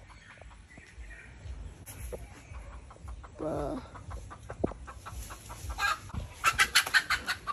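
Chickens perched up in a tree, clucking: one short call about three and a half seconds in, then a quick run of clucks near the end.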